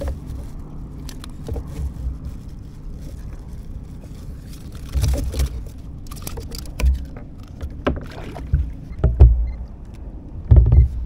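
Handling noises aboard a plastic fishing kayak: irregular dull thumps and small clicks as the line, rig and rod are handled. The loudest thumps come about halfway through and near the end.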